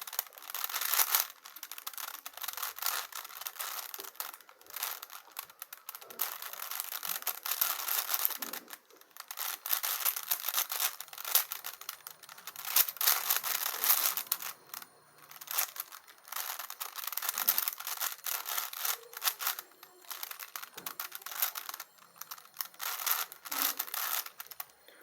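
A 5×5 Rubik's cube being turned quickly by hand, its plastic layers clicking and rattling in a rapid run of turns with a few brief pauses.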